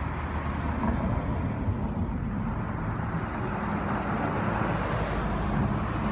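Steady car engine and road noise while driving, a low rumble with an even rush over it.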